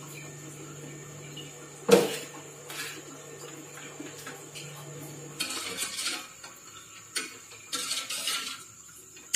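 Stainless-steel spoon clinking and scraping on a steel plate as cooked semolina dough is broken up, with one sharp clink about two seconds in. In the second half comes scraping, as of a steel ladle stirring in a steel pot. A low steady hum stops about halfway through.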